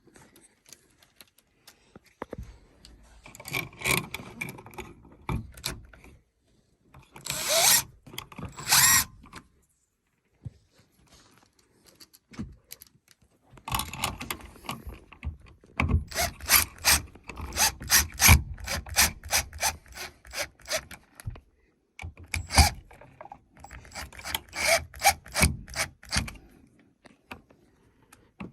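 Single-pole light switch being pushed back into its wall box and screwed down: scraping and rubbing, two longer scrapes, then long runs of quick clicks as a screwdriver drives the mounting screws.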